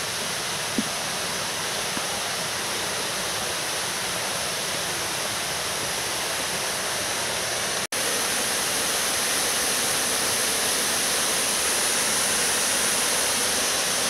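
Waterfall: a steady rush of falling water. It breaks off for an instant about eight seconds in and comes back a little louder.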